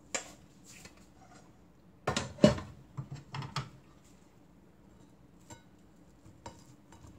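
Kitchen dishes and utensils clattering: a single click at the start, then a quick run of sharp knocks about two seconds in, and a couple of faint taps near the end.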